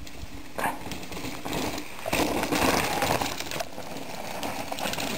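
Mountain bike riding over a loose rocky trail: tyres crunching on stones and the bike rattling, loudest from about two to three and a half seconds in.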